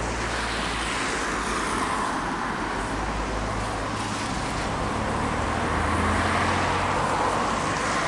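Road traffic: a steady hum of cars on nearby streets, swelling as a vehicle goes by about five to seven seconds in.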